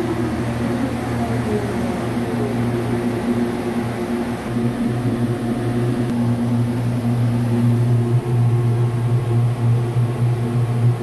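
Large vertical CNC turning lathe running: a steady low mechanical hum with a few fainter steady tones above it.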